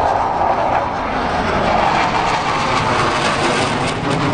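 Engine noise from two display aircraft flying overhead, a steady, even sound.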